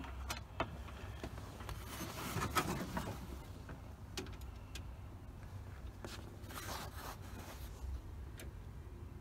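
Faint rustling and rubbing handling noises with scattered light clicks, a little louder about two seconds in and again near seven seconds; the engine is not running.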